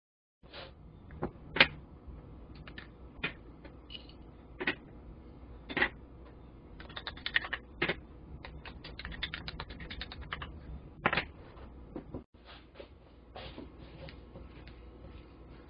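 Wooden spoon tapping and scraping against a stoneware bowl while ssamjang paste and banana are mixed, in irregular clicks and knocks with a quick run of clicks partway through.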